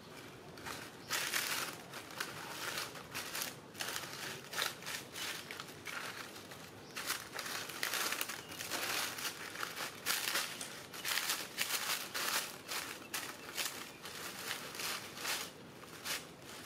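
Dry fallen leaves crunching and crinkling in irregular bursts as a cat steps and pokes about in a pile of them, starting about a second in.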